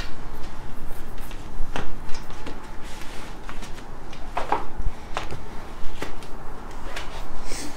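A 700x35C Donnelly gravel tire being worked onto a bicycle wheel rim by hand: rubber rubbing and scraping against the rim, with scattered sharp clicks.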